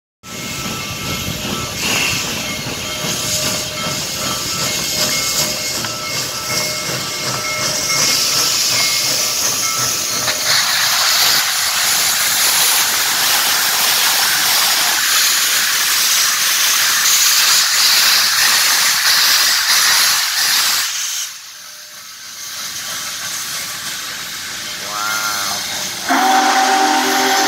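Union Pacific Big Boy No. 4014, a 4-8-8-4 articulated steam locomotive, passing at low speed with steam hissing loudly from it. Near the end its steam whistle starts sounding a steady chord.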